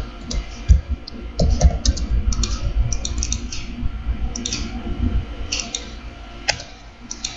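Computer keyboard keystrokes and mouse-button clicks in irregular runs, as drawing commands are typed and points picked.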